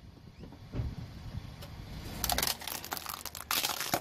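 Plastic toy pistol cracking and crunching under a rolling car tyre, in two bursts of snapping, about two seconds in and again, louder, near the end, over a low rumble.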